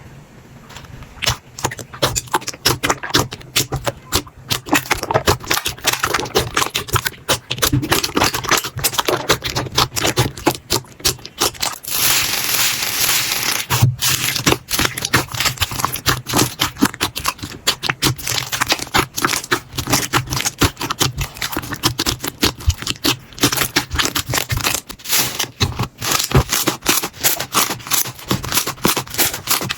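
Slime being squeezed and worked for ASMR, giving a dense run of small crackling clicks and pops, with a thicker, hissier stretch about twelve seconds in.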